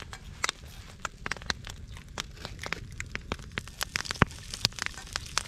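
Wood campfire crackling, with many sharp, irregular pops and snaps over a faint hiss, while a greased pan heats on the fire.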